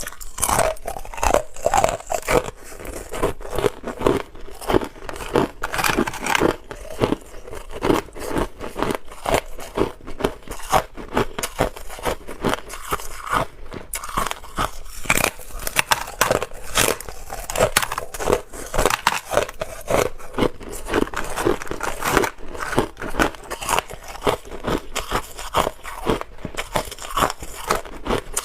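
Hard clear ice being bitten and chewed, a dense run of sharp cracks and crunches closely picked up.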